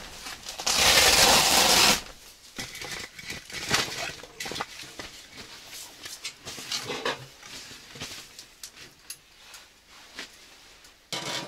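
Tent fabric rustling loudly for about a second as the roof panel around the stove-pipe opening is pushed and handled, stopping abruptly. Then scattered light knocks and scrapes of handling around the wood stove.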